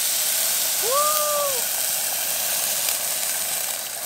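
Water poured into a hot pot of dry-fried shallots, garlic, galangal and turmeric, hissing and steaming loudly as it hits the hot metal and aromatics, the hiss easing off near the end. About a second in, a short rising-and-falling voice sound.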